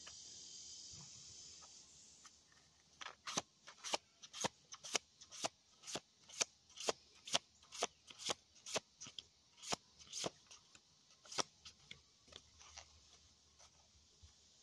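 A deck of tarot cards being shuffled by hand, from about three seconds in: short soft card clicks about twice a second, growing sparser near the end.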